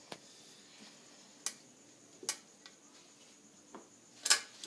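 Small metal parts of a recoil pull starter clicking against the starter pulley as they are fitted by hand: a handful of separate sharp clicks, the loudest a quick cluster near the end.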